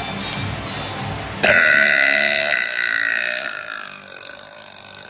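A woman's long, loud burp, brought up by chugging soda. It starts suddenly about a second and a half in, holds a fairly steady pitch, and fades out over the following few seconds.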